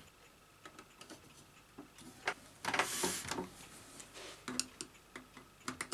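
Screwdriver undoing the screws of the metal plate over a Betamax recorder's tape mechanism: scattered small metal clicks and ticks, with a short louder scrape about three seconds in.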